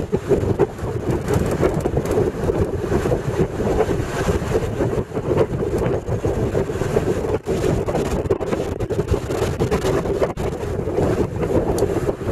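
Steady rumble of a moving road vehicle, its engine and tyres running on the road, with wind noise on the microphone.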